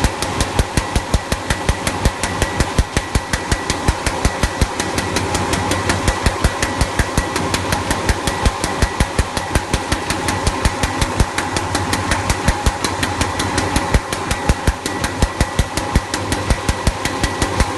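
Paper shopping-bag making machine running, a rapid, even clacking of several strokes a second over a steady mechanical hum.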